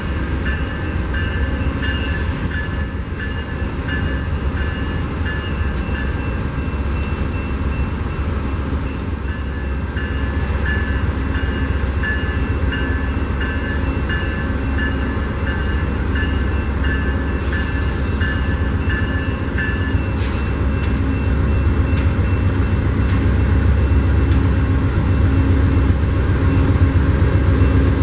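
Amtrak GE Genesis diesel locomotive hauling a Superliner passenger train as it approaches, its low engine rumble growing louder toward the end. A bell rings in a steady rhythm of about two strikes a second through the first two-thirds, then stops.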